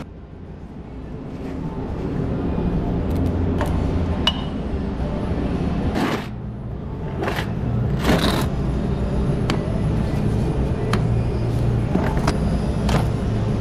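Plastic mechanics tool set case being handled, set down on a concrete floor and its latches clicked open: scattered clicks and knocks, with two louder bangs about six and eight seconds in, over a steady low hum.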